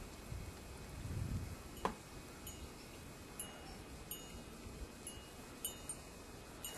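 Wind chimes ringing faintly: a handful of short, high metallic pings at irregular intervals. A dull thump and a sharp click come between one and two seconds in.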